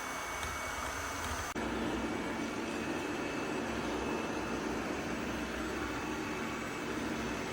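Robot vacuum cleaner running steadily: an even motor and fan whir. Its tone changes abruptly about a second and a half in.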